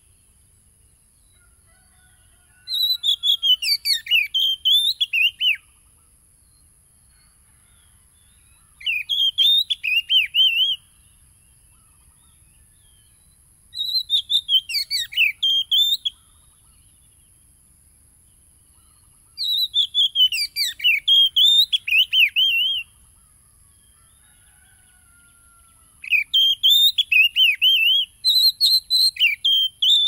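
Oriental magpie-robin (kacer) singing: five loud phrases of rapid, varied whistled notes, each a few seconds long, with pauses of a few seconds between them.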